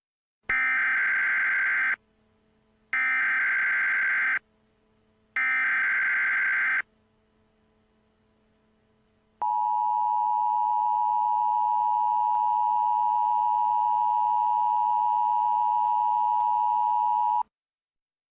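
Emergency Alert System header and attention signal for a mock Emergency Action Notification. Three bursts of SAME header data tones, each about a second and a half long, come first. After a pause, the two-tone attention signal (853 and 960 Hz together) holds steady for about eight seconds and then cuts off.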